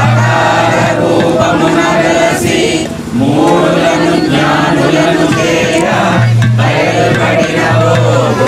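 A group of voices singing a devotional chant together into handheld microphones, with held low notes under the voices in places.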